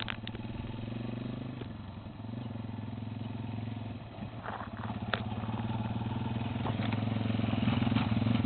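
A motor vehicle engine running steadily, getting louder through the second half, with a couple of light knocks.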